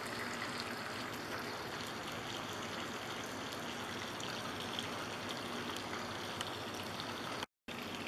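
Cornstarch-battered squirrel pieces flash-frying in hot oil in a cast-iron skillet: a steady sizzle with fine crackles, cut off briefly near the end.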